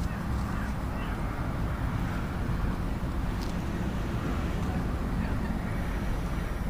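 Steady low outdoor rumble with no distinct event, and a faint click about three and a half seconds in.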